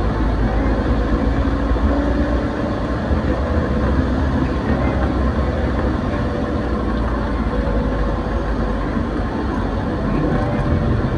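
Motorcycle riding along at a steady pace: a continuous engine note that shifts slightly in pitch, under a steady rush of road and air noise.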